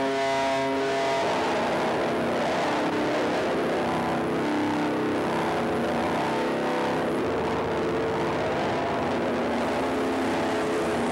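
Live experimental noise music: a dense, distorted wall of noise with shifting drone tones under it. A held chord of steady tones breaks off about a second in.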